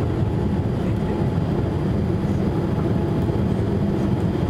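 Steady cabin noise of a Boeing 787-8 in its climb after takeoff, heard over the wing: its Rolls-Royce Trent 1000 engines and the airflow make an even, low rush.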